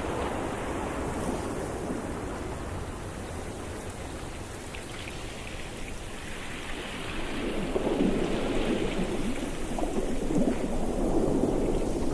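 Ocean surf: waves washing and breaking on a shore, a steady rush that swells louder about halfway through as a bigger wave breaks.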